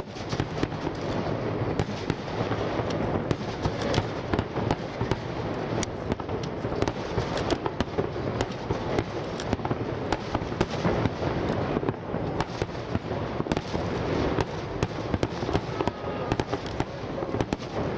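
Water star mine fireworks: shells launched onto the lake surface and aerial shells bursting in a dense, unbroken barrage, many sharp cracks a second over a steady low rumble.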